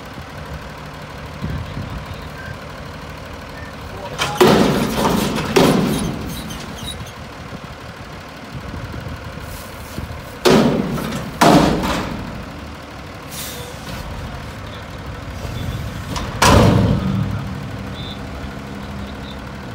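Front-loader garbage truck's diesel engine running under load while its hydraulic forks lift a steel commercial dumpster over the cab and tip it into the hopper. Loud metal bangs with ringing tails come in two pairs, each about a second apart, as the dumpster is shaken and knocked empty at the top. One more bang comes near the end as the container comes back down.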